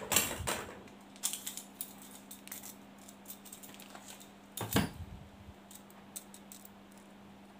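Pocket tape measure being handled: its steel blade pulled out with light, scattered clicks and rattles, a louder clack at the start and another just under five seconds in.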